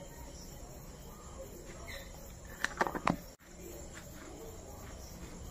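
Quiet room tone with a short run of soft sharp clicks or pats about three seconds in, from fingertips working moisturiser into the face.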